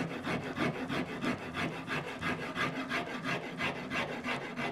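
Hand rasp filing the back of a wooden electric guitar neck in quick, even strokes, about three a second, taking down high spots to shape the neck contour.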